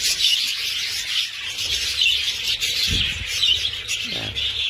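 A flock of lovebirds chattering and chirping continuously in an aviary room, with a dull thump about three seconds in.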